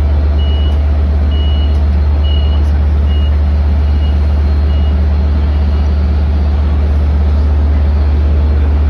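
Door-closing warning beeps of a Long Island Rail Road bilevel coach: a run of short high beeps, about one a second, fading out about five seconds in, signalling that the doors are closing. Under them the stopped diesel train's steady low rumble.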